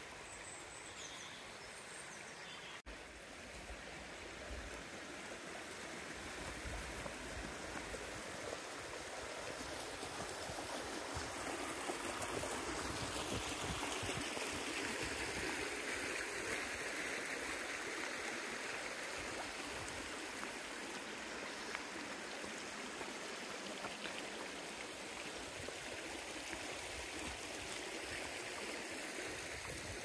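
Shallow stream rippling and babbling over stones. It grows louder toward the middle and then eases slightly.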